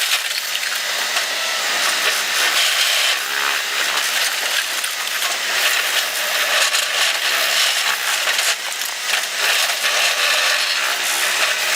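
A machine working with a continuous harsh, rasping grinding noise that is mostly high-pitched with little bass.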